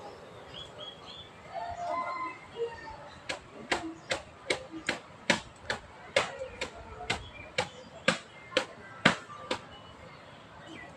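A run of about fifteen sharp taps or clicks, roughly two a second and unevenly spaced, starting about three seconds in and stopping near the end. A few faint short chirp-like tones come before them.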